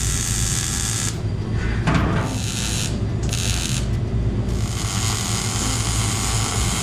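MIG welder plug-welding sheet-steel floor pans: several separate bursts of crackling hiss with short pauses between welds, the last one longer.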